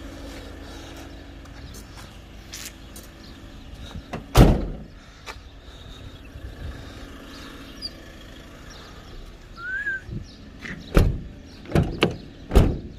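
A stuck door being knocked and banged to free or shut it: one loud bang about four seconds in, then four sharp knocks in quick succession near the end.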